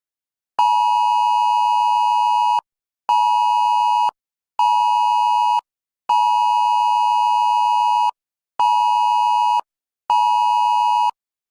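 Emergency Alert System two-tone attention signal, a harsh steady two-note tone near 1 kHz, pulsed loudly in a pattern of one long and two short beeps, played twice.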